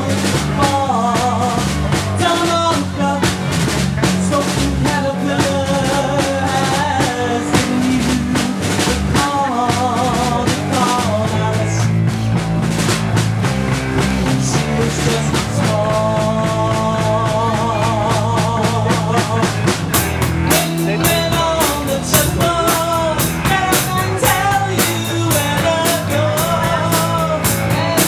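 Live rock band playing: drum kit, bass, electric guitar and keyboard, with a wavering lead melody over the top. The cymbal strikes grow busier about twenty seconds in.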